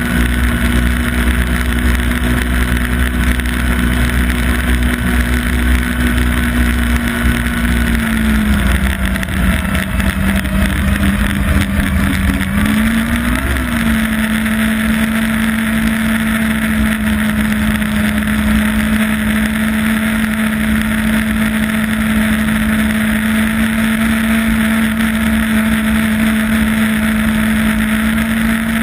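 Yamaha Apex snowmobile's four-stroke four-cylinder engine running at steady trail speed under wind and track noise. The engine note drops as the throttle eases about eight seconds in, picks back up with a short blip about five seconds later, then holds steady.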